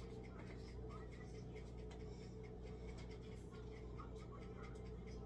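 Faint steady low hum with light scattered clicks and small scrapes.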